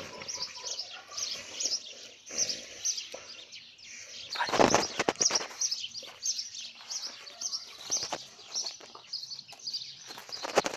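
Small birds chirping in a steady, repeated pattern of short high notes, with a brief, louder noisy crunch about halfway through.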